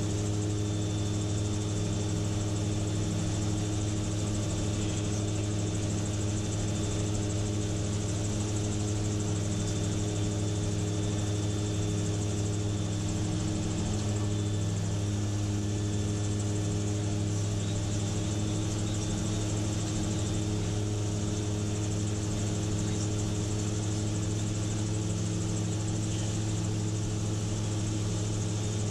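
Gyrocopter's engine and pusher propeller running steadily in cruising flight, heard from inside the cockpit as an even, unchanging drone with a steady hiss above it.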